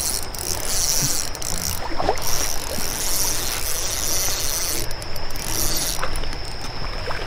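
Steady rush of flowing creek water, with a few faint clicks now and then.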